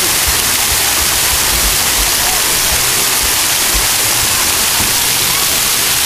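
Water from a pool's waterfall feature pouring down as a spray of drops onto shallow water, a steady loud rushing hiss.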